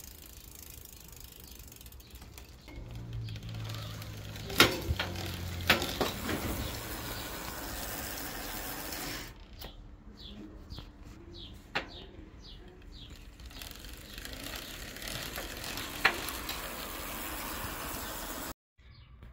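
Bicycle drivetrain being test-run after a new chain: freewheel ratchet ticking over a steady hiss, with a few sharp clicks like gear changes, as the bike is checked for the chain clicking that troubled it.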